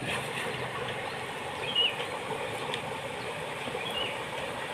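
Steady rush of river water, with a bird chirping twice, short and high.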